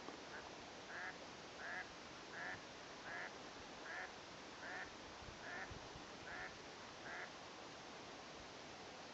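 A bird calling in an even series of about ten short calls, roughly one every three-quarters of a second, the first one fainter, over a faint steady hiss.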